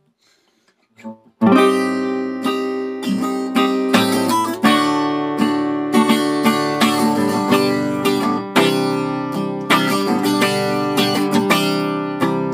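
Near silence for about a second and a half, then an acoustic guitar strummed in a steady pattern of full chords.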